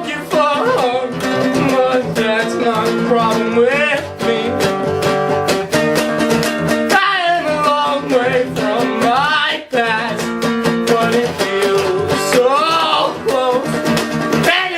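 Acoustic guitar strummed steadily while a voice sings a folk-punk song over it.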